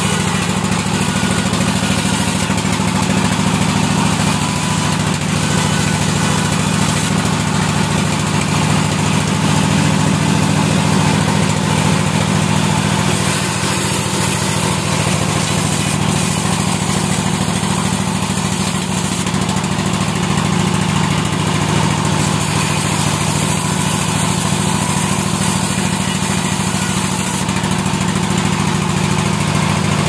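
Large vertical band sawmill running steadily as short logs are pushed through the blade: a constant low machine drone with the noise of the blade cutting wood over it.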